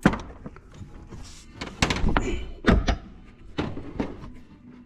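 About four dull knocks and thunks spread over a few seconds, with small handling noises between them.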